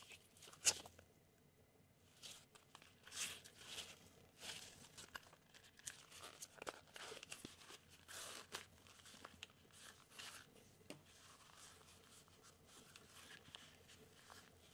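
Handling noise from a Cordura nylon ID card holder and its cord: a string of short fabric rustles and scrapes as it is opened, folded and turned over, with a sharp click about half a second in.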